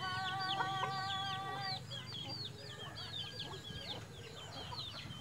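Chicks peeping without pause in short, high, downward-sliding chirps. A chicken gives one long, steady call over them for the first two seconds.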